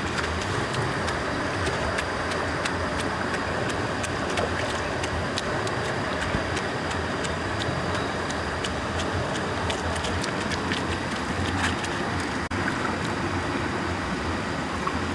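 Steady rush of running water, with irregular light clicks and scrapes from knives working over fish on the rock.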